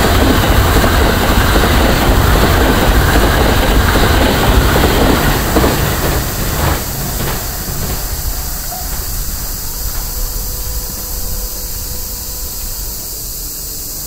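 Limited express electric train passing over a level crossing, with a dense rumble and rattle of wheels on rail. The noise fades away about six to seven seconds in as the last car clears. Cicadas keep up a steady high shrill underneath.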